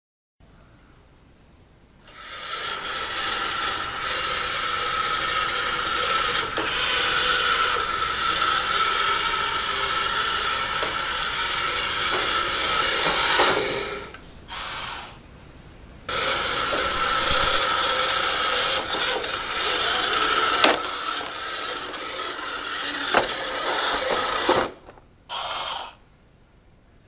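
Robot vacuum cleaner running: a steady motor whine over brushing and rattling noise, with a few sharp knocks. It cuts out for a couple of seconds about halfway through, runs again, then stops near the end after one short burst.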